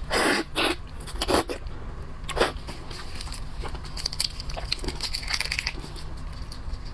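Crab shell being cracked and broken apart: a few sharp cracks in the first two and a half seconds, then lighter crackling and crunching.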